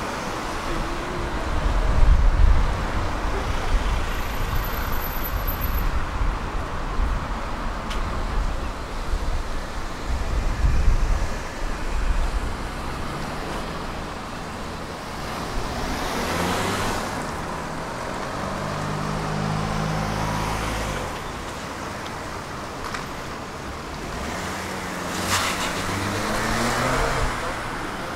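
Tram running along its line: a steady low rumble, heavier in the first dozen seconds. From about the middle a low hum comes in and shifts pitch in steps.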